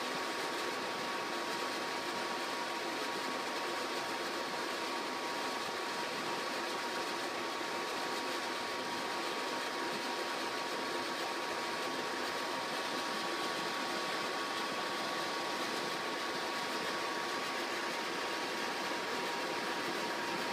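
Harman Acentra 2 pellet stove running, a steady mechanical whir with a constant high hum.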